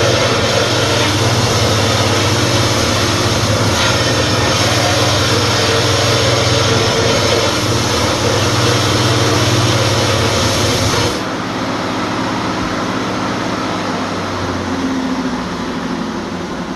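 Power cutting tool cutting through water-heater steel under load, with a steady hissing cut over a low motor hum; the cut stops abruptly about 11 seconds in, leaving a quieter low running sound that fades.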